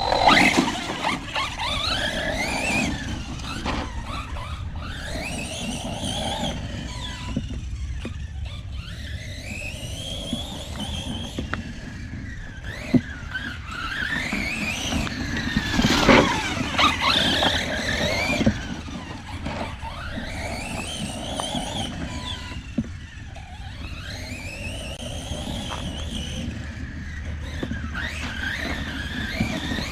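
Redcat Kaiju EXT 6S brushless RC truck driven hard: the electric motor's whine climbs and falls again and again as it accelerates and slows. A few sharp knocks sound near the middle.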